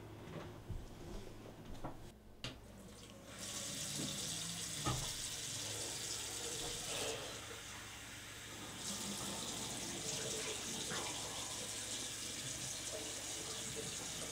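Bathroom sink tap turned on about three seconds in, then water running steadily into the basin; before it, only a few faint knocks.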